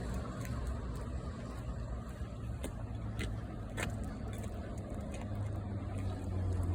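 A car's engine running, a low hum that grows louder from about five seconds in, with a few light clicks near the middle.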